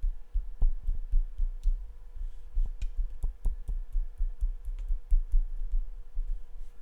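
Light finger taps on a Sony a6400 camera body, recorded through a MOVO VXR10 Pro shotgun mic in a Rycote shock mount, so they come through mostly as irregular dull low thumps with the odd sharper click. A faint steady hum runs underneath.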